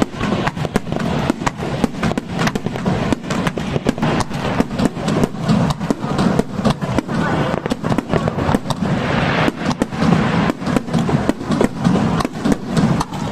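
Aerial fireworks going off in a rapid, continuous barrage: sharp bangs and crackles, several a second, over a steady low rumble.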